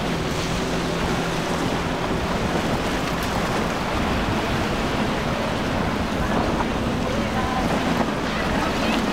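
Steady wash of waves and surf with wind buffeting the microphone, over the drone of a center-console boat's twin outboard motors running at speed. The engine tone is clearest in the first couple of seconds, then sinks into the water and wind noise.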